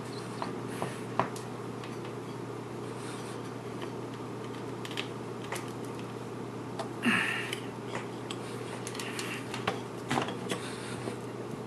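Scattered light metallic clicks and clinks as a toothed saw blade is turned by hand on an angle grinder and the grinder's pin spanner is fitted to tighten the blade nut. A louder clatter comes about seven seconds in, with a cluster of clicks a few seconds later, over a steady low hum.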